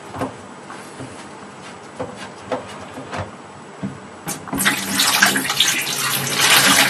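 A few light plastic clicks and knocks as a sink drain trap's plastic cup is unscrewed, then water poured out of the cup into a plastic bucket, splashing steadily for about two and a half seconds until the end.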